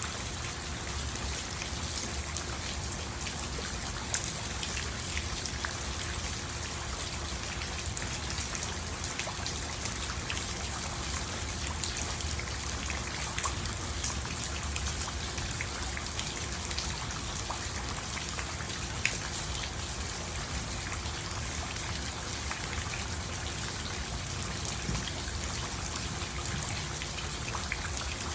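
Steady rain falling, an even hiss with many scattered sharp ticks of individual drops striking nearby surfaces.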